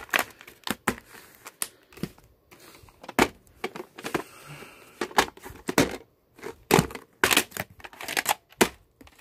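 Plastic VHS clamshell cases and cassettes being handled: an irregular run of sharp plastic clicks, snaps and knocks as a case is opened and shut and tapes are picked up and set down, with a soft rustle about four seconds in.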